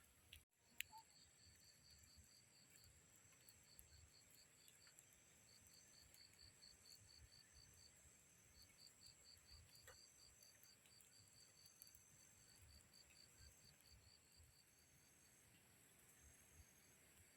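Faint insects in forest: repeated trains of rapid high chirps over a steady high-pitched insect drone, with a single click about a second in.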